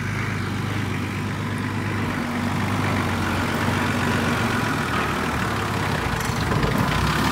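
Nissan Patrol GU 4WD's engine running at low revs as the vehicle crawls slowly over rough ground, growing a little louder as it comes closer.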